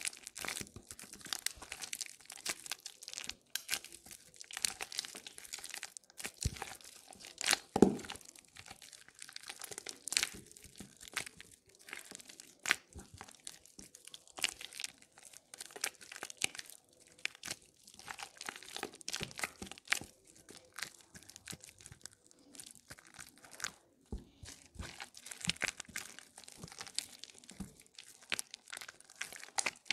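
Soaked, crumbled bar soap squeezed and kneaded in gloved hands, giving irregular wet crunching and crackling, with one louder squeeze about eight seconds in.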